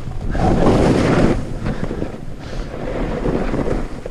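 Wind buffeting the camera microphone at skiing speed, mixed with the rough scrape of skis sliding over chopped-up snow. A louder surge of scraping and rushing comes about half a second in and lasts about a second.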